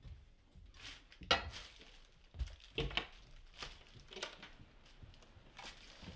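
Scattered rustles and light knocks of someone moving about and handling things in a small room, with a sharper rattly knock about a second in.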